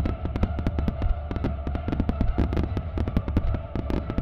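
Music starmine fireworks barrage: many shells bursting together in a rapid run of sharp cracks and bangs, several a second, over a continuous low rumble. The show's accompanying music plays faintly underneath.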